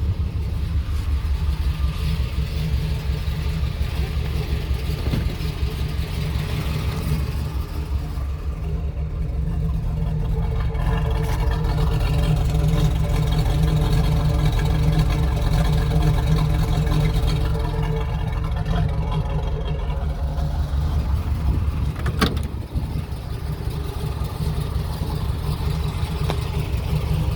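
The 1969 Camaro SS's 350 cubic-inch L48 V8 runs with a steady, pulsing low rumble. Between about 10 and 20 seconds in, the running grows somewhat louder and more tonal, then settles back.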